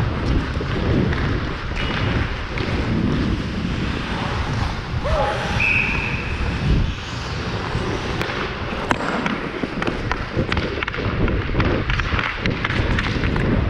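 Ice hockey play from a player's helmet camera: skate blades scraping and carving on ice, with sticks and puck clacking and knocking, and players' voices calling out. A brief high steady tone sounds about six seconds in.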